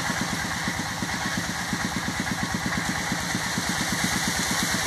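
A small engine idling steadily, with a fast, even pulse.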